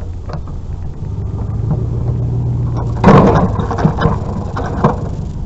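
A vehicle engine running steadily, with a loud clatter about three seconds in and a few lighter knocks after it.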